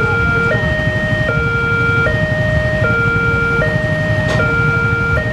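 Railway level crossing's electronic warning alarm sounding a two-tone hi-lo signal, switching between a lower and a higher note about every 0.8 seconds, a sign that a train is approaching and the barrier is closed.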